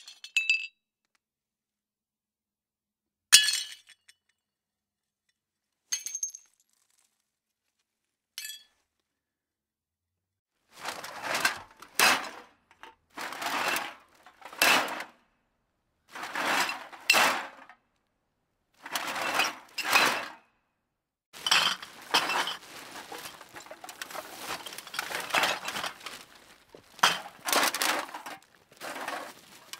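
Plates smashing: four separate breaks with high ringing shards in the first nine seconds. Then, after a short silence, a run of rattling, clattering bursts comes about every second and a half.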